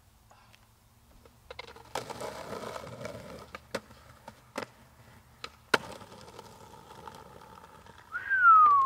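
Skateboard wheels rolling over rough concrete slabs, starting about two seconds in, with several sharp clacks of the board striking the slab edges and landing. Near the end comes a loud high tone that falls in pitch, the loudest sound.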